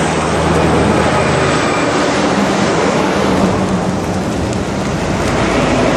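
Loud, steady rush of a hailstorm: falling hail and wind. Under it, a passing semi truck's engine hum fades out over the first couple of seconds.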